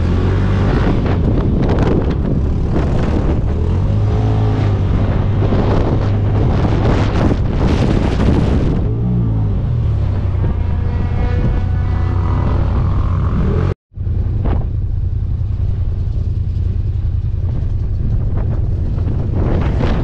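Side-by-side off-road vehicle's engine running hard at speed across sand dunes, heard from the cab with wind noise on the microphone; the engine pitch rises and falls with the throttle. The sound cuts out for an instant about fourteen seconds in.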